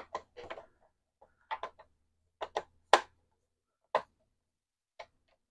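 Screwdriver clicking against a loose screw and the plastic bottom case of a TRS-80 Color Computer 2: irregular small clicks, some in quick pairs, the loudest about three seconds in. The screw turns freely but will not drop out of its hole.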